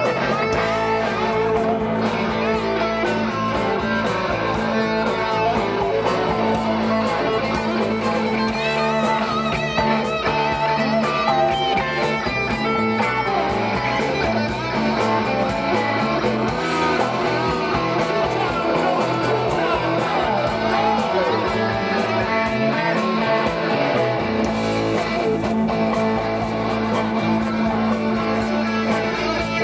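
Live rock band playing an instrumental passage with no singing, electric guitar to the fore over bass and drums with a steady beat.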